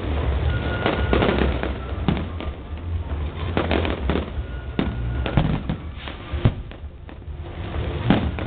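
Aerial fireworks going off in an irregular string of bangs, with the sharpest bang about two-thirds of the way through.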